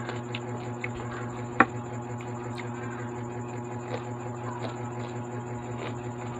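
Person chewing crunchy cucumber and fries with mouth closed: scattered soft clicks, one sharper click about a second and a half in, over a steady low hum.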